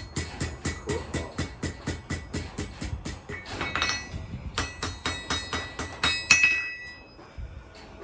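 Blacksmith's hammer striking hot steel on an anvil in a quick steady rhythm, about four to five blows a second, each with a ringing tone, as a rebar blade is worked over the anvil horn to bend it into a curve. The blows stop briefly near the end.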